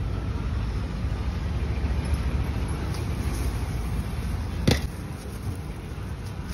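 Steady low rumble of outdoor street noise, with a single sharp click about four and a half seconds in.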